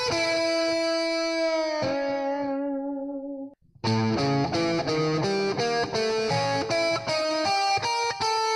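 Electric guitar playing an A7 arpeggio-based riff: held notes ring out and fade for about three and a half seconds, then after a brief gap a quick run of single arpeggiated notes follows.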